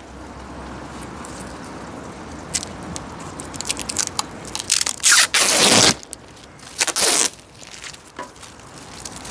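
Clear protective plastic film being peeled off a plastic bar rail: a crackling rustle with two loud rips, one about five seconds in and a shorter one about seven seconds in, among small clicks and knocks.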